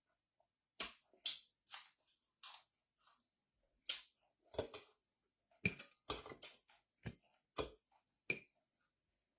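Close-miked eating sounds: irregular short, sharp mouth clicks and smacks while chewing, coming more thickly in the second half.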